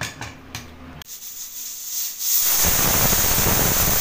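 Aluminium pressure cooker on a gas flame letting off steam past its whistle weight: a loud, steady rushing hiss that starts about two seconds in. This is the cooker's whistle (सीटी), the sign that it has come up to pressure.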